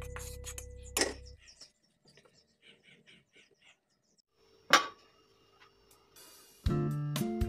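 Background music that stops about a second in, followed by a quiet stretch with a few faint scrapes and one sharp click; the music starts again near the end.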